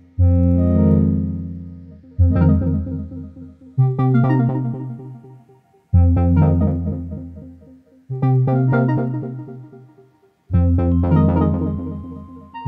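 Background music: slow keyboard chords, a new one struck about every two seconds and each dying away before the next.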